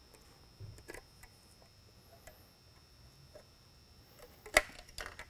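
Polycarbonate lightbar dome being worked loose from its aluminum base: a few faint clicks, then one sharp click near the end as the dome's edge comes free.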